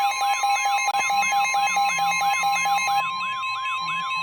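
Weather radio alert tones for a severe thunderstorm warning. A steady alarm tone sounds together with a fast siren-like warble of about three to four sweeps a second and a rapid beeping that stops about three seconds in.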